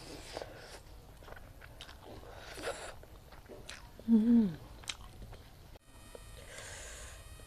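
Close-miked chewing and biting of food, with scattered small wet clicks and crunches, and a loud appreciative "mm" about four seconds in that falls in pitch.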